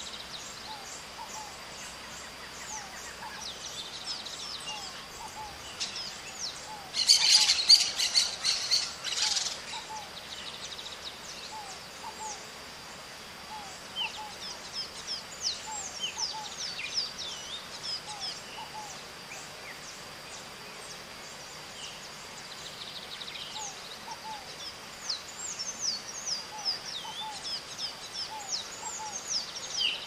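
Green parakeets calling: a loud burst of harsh screeching calls about a quarter of the way in, and many short, high, falling chirps scattered through the rest, thickest near the end. Behind them run a steady thin high tone and a faint lower note repeated about once a second.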